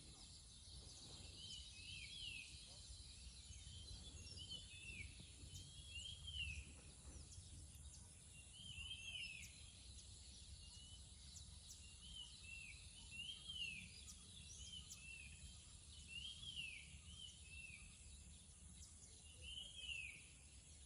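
Birds chirping faintly: short, arched chirps repeated in small groups every second or two, over a haze of other bird calls and a steady low rumble.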